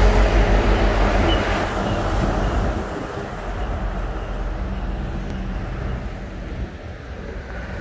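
Heavy container truck driving past close by, its diesel engine loudest at first and fading over about three seconds. Quieter street traffic noise remains after it has gone.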